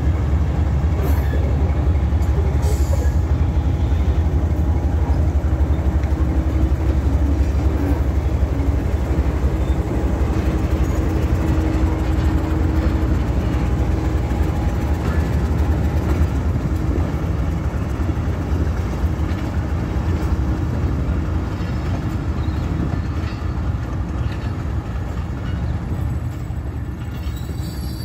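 Pakistan Railways diesel locomotive passing close with its engine running in a deep, steady rumble. The sound eases a little near the end as the passenger coaches roll past.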